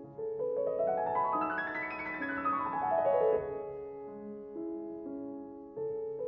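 Background piano music: a quick run of notes climbs and falls back again over the first few seconds, then slower held notes.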